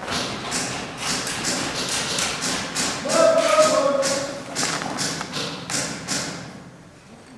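Footsteps crunching on the ground at a walking pace, about two a second, stopping near the end. About three seconds in, a short held pitched sound, like a voice, is the loudest part.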